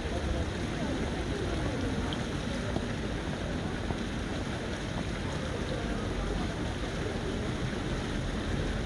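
Outdoor city-square ambience: a steady hiss and low rumble, with faint distant voices.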